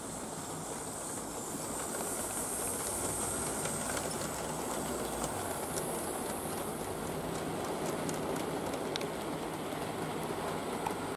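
Model railway goods train of mineral wagons running past on the track: a steady rumble of small wheels on the rails with light clicks over the rail joints. It grows a little louder about two seconds in.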